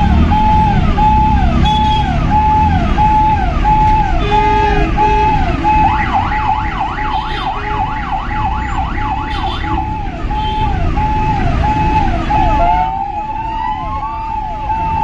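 Electronic siren sounding a repeating pattern: a held note that drops in pitch, about twice a second. A second, faster warbling siren joins for a few seconds in the middle, and rising whoops come in near the end, over steady low noise.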